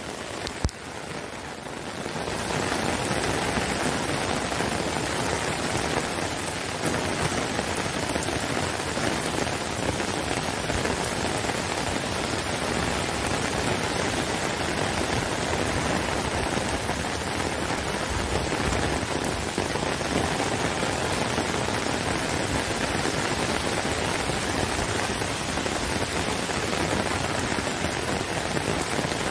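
Heavy rain falling steadily on paving, grass and tree leaves, a dense even hiss that swells to full over the first two seconds. A single sharp click sounds a little under a second in.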